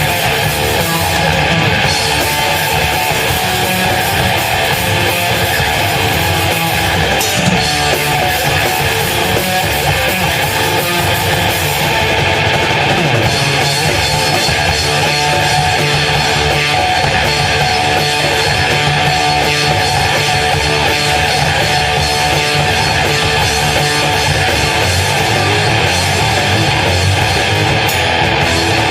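A heavy metal band playing live at full volume, led by loud electric guitars.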